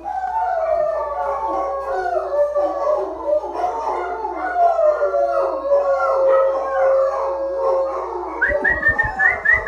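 Dog howling in long, wavering, drawn-out howls, with more than one pitch overlapping. Near the end a quick run of short rising whistles comes in, along with a few low thumps.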